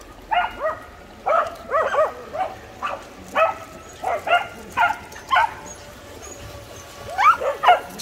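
Welsh Corgi barking over and over in short, sharp, high barks, about two or three a second, breaking off for a second or so and then firing three quick barks near the end.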